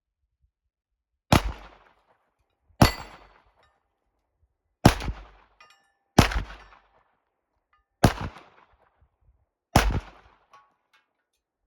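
Kimber 1911 pistol in 9mm fired six times at an unhurried pace, about one and a half to two seconds between shots, each shot trailing off in an echo.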